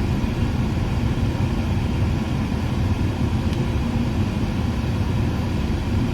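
Steady low rumble of a car's interior while driving, with no speech over it.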